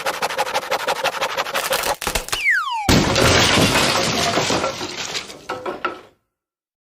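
Cartoon-style sound-effect gag: a fast clattering rattle, then a quick falling whistle, then a loud crash of breaking and shattering that dies away over about three seconds.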